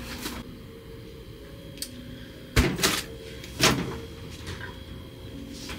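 Countertop microwave oven door clicking open and clunking shut: a sharp knock about two and a half seconds in, then another, and a second clunk about a second later.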